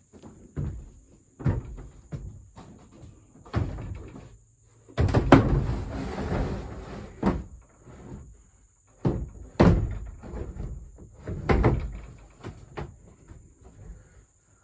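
Irregular knocks and thuds of plastic shed panels being handled and fitted together, with a longer rattling scrape about five seconds in that is the loudest part. Crickets chirr steadily and high underneath.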